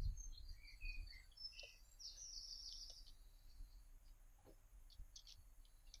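Faint chirps and twitters of small songbirds over the first three seconds, followed by a few faint clicks.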